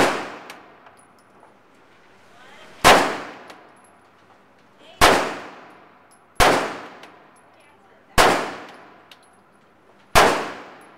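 Six loud shots from a semi-automatic pistol, fired one at a time about one and a half to two seconds apart. Each is a sharp crack followed by a ringing echo off the walls of the indoor range.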